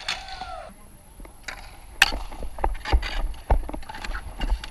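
Dek hockey play: sticks, ball and shoes clacking and scuffing on a plastic sport-tile court, as a string of sharp clicks and knocks. The loudest knock comes about two seconds in.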